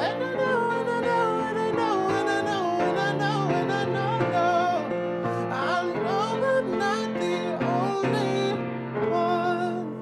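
A male singer sings a slow melody in a high voice with vibrato, accompanied by a grand piano.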